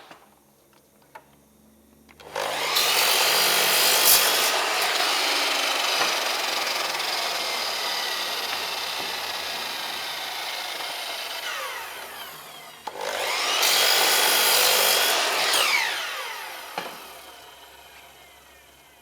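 Electric power saw making two cuts through MDF. The motor spins up about two seconds in, cuts and winds down slowly; a second cut starts around thirteen seconds and winds down near the end.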